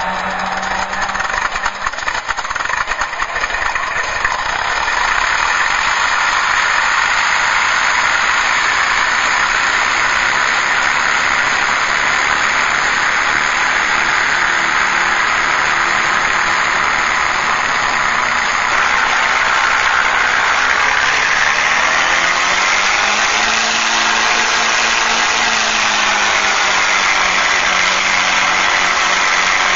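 Recorded airplane engine sound played back through an MrRCSound V4 RC sound unit's speaker. It starts choppy and builds up over the first few seconds, then runs steadily. About two-thirds of the way in, the pitch rises and falls back as the simulated throttle is opened and closed.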